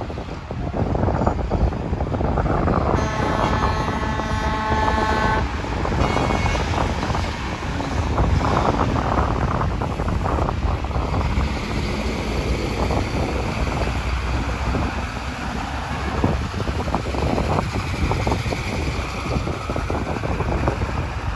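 Wind buffeting the microphone over a steady low rumble of vehicles. About three seconds in, a held pitched tone sounds for about two seconds, with a shorter, fainter one just after.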